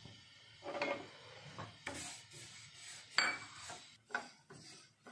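Wooden spatula stirring sesame seeds as they dry-roast in a nonstick pan: irregular scraping strokes with one sharper knock about three seconds in, the strokes coming quicker near the end.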